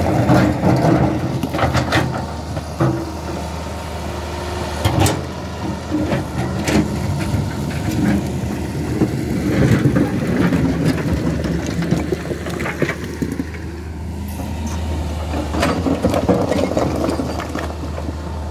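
Hydraulic excavator's diesel engine running steadily, with scattered sharp knocks and clatter of boulders as the bucket places loose rock.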